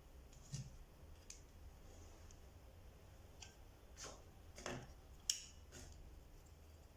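Small, sharp clicks and taps of objects being handled on a work surface, about seven at irregular spacing, the sharpest a little past five seconds in.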